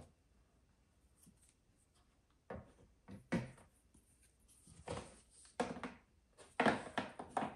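A hard plastic bracket knocking and scraping against the plastic body of a portable camping toilet as it is tried in place, in a series of short clacks and rubs starting about two and a half seconds in.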